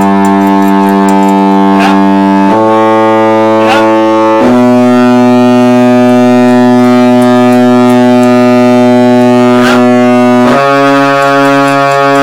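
Tuba reed pipes of a Beckerath pipe organ sounding long held notes, the pitch changing three times. Three sharp knocks come from the tuning rod striking the pipes' tuning wires. Near the end one note wavers with a regular beat.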